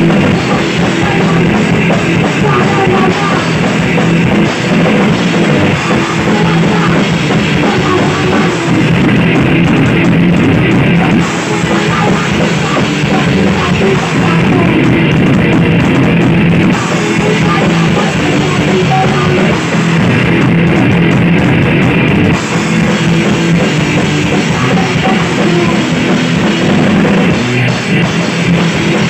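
A punk rock band playing live, with electric guitars, bass guitar and a drum kit, loud and continuous.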